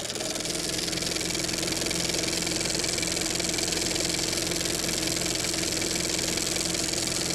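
Briggs & Stratton Sprint lawn mower engine running at a steady speed.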